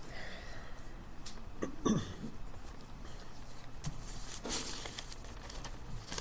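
Quiet library ambience: a steady low hum under scattered soft clicks and knocks. A short, falling low sound about two seconds in is the loudest moment, and a brief rustle comes about four and a half seconds in.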